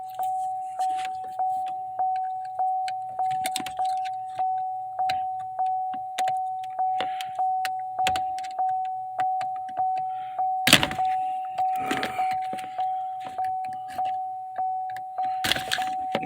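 A 2012 Buick Verano's warning chime dinging steadily, about two chimes a second, with scattered clicks of tools on the plastic shifter and louder knocks about eleven seconds in and near the end.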